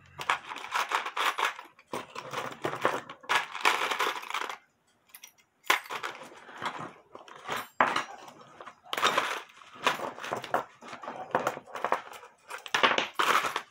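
Rummaging through a plastic tray of loose metal clock parts: metal pieces clinking and rattling against each other and the plastic, in repeated bursts of clatter.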